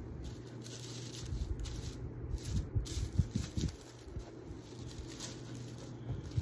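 Soft rustling and light knocks of craft materials being handled on a worktable, clustered around the middle, over a steady low hum.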